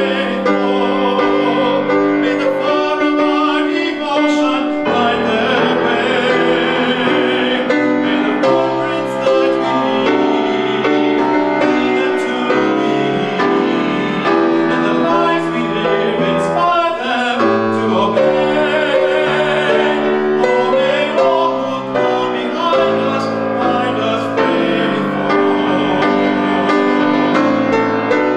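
A man singing while accompanying himself on a grand piano.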